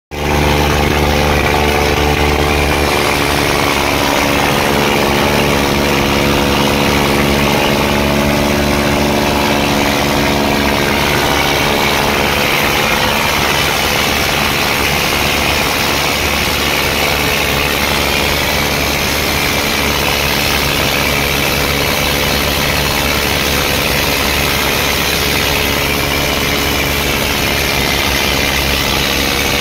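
Diesel tractor engines of an Eicher 557 and a Swaraj 855 running steadily while hitched back to back in a tractor tug-of-war.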